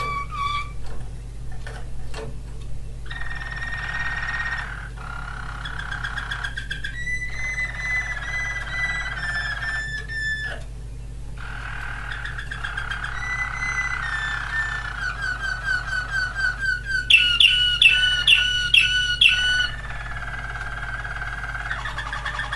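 Waterslager song canary singing a long, near-continuous song of varied tours: whistled notes, rolls and trills with short pauses. About three quarters of the way through comes its loudest passage, a run of about four sharp strokes a second lasting a couple of seconds.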